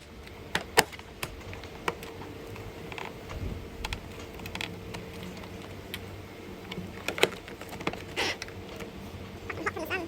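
Scattered small clicks and taps of a blade screwdriver working at the plastic end cap of a Toyota roof rail to pop it off, with a short scraping sound about eight seconds in.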